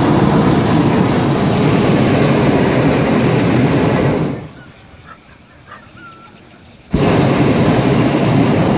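Hot-air balloon's propane burner firing in two long blasts, each cutting in suddenly. The first lasts about four seconds; after a short quiet gap the second starts about seven seconds in.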